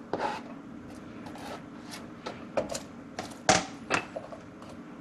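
Light clicks and taps of sliced onion being dropped and scattered by hand into a dry nonstick frying pan, with fingers brushing pieces off a plastic cutting board. The sharpest taps come about three and a half and four seconds in, over a faint steady hum.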